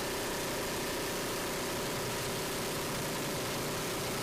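Steady mechanical drone over a constant hiss, unchanging throughout.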